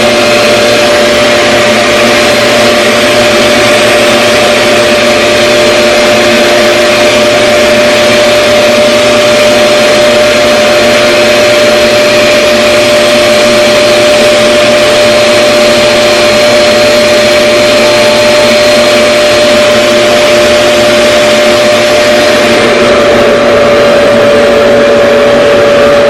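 RevAir reverse-air hair dryer running steadily on a straightening pass: a loud rushing whir of its suction motor with a steady whine.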